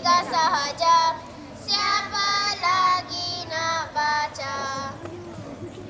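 Young girls singing into a microphone, heard through a PA loudspeaker: short held phrases with bending pitch and brief pauses between them, louder in the first half.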